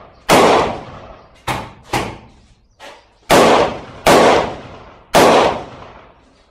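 AR-15 rifle fired about six times at uneven intervals, each sharp shot trailing off in an echo, two of them quicker and quieter than the rest.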